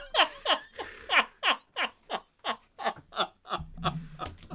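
A man laughing: a long run of short, falling-pitched laughs, about three a second, getting quieter toward the end.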